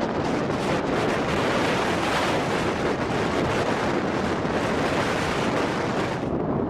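Blizzard wind blowing hard and steadily, rushing and buffeting the microphone.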